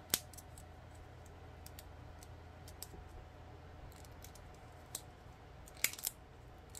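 Clear plastic shrink-wrap on a pair of batteries being picked and pulled at with the fingers, giving scattered sharp clicks and crinkles: a sharp one just after the start and a quick cluster of three near the end. The wrap is hard to open by hand.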